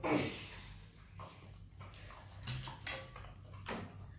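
Faint clicks and scrapes of small plastic slime jars and lids being handled, with slime tipped out into a plastic bowl. A brief louder knock comes right at the start.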